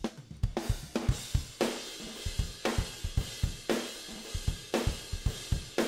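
Raw multitrack recording of a pop-punk drum kit playing back: a steady beat of kick drum and snare strokes about once a second, under a wash of hi-hat and cymbals.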